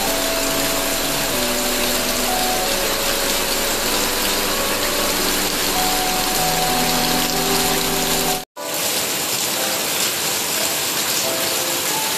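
Heavy rain pouring down: a steady, dense hiss. Faint background music plays beneath it, and the sound cuts out for an instant about eight and a half seconds in.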